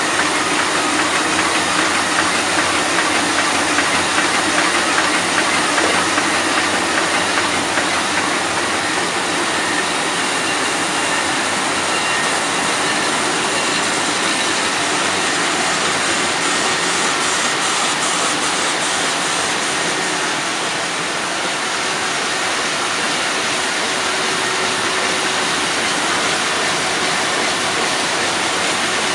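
MAN Roland 705 five-colour sheet-fed offset printing press running in production: a loud, steady mechanical din with a constant hiss.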